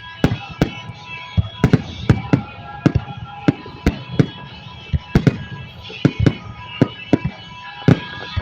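Fireworks going off: a rapid, irregular string of sharp bangs, about twenty in eight seconds.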